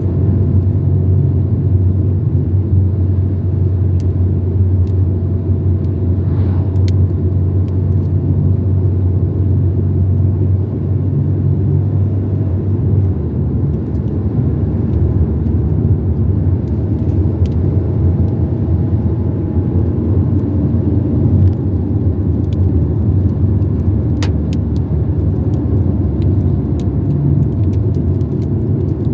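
Car driving along a highway: a steady low drone of engine and tyre road noise, with a few faint clicks.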